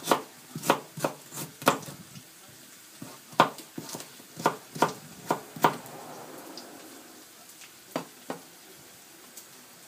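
Kitchen knife chopping lotus root on a plastic cutting board: sharp knocks about two a second, with a short pause, stopping about six seconds in. Two more single knocks come near the end.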